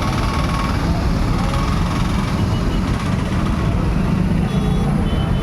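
Moving city bus heard from inside: steady engine and road noise, strongest in the low end.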